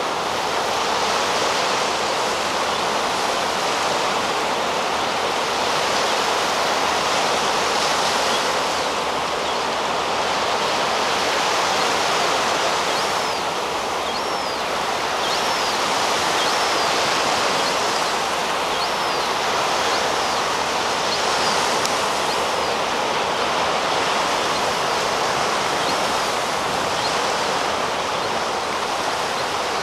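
Steady rushing of sea surf breaking on the beach. From about halfway through comes a string of faint, high, short calls: a juvenile herring gull begging for food.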